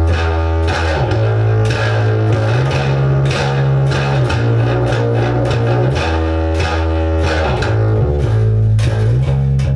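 Electric Jazz bass played through a Trace Elliot Elf micro bass amp with the overdrive pushed hard and overloading, a repeating riff of held low notes. The pickup blend is turned towards the P-bass pickup.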